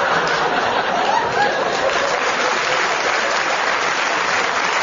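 A live audience applauding steadily, with some laughter mixed in, in reaction to a comedy punchline.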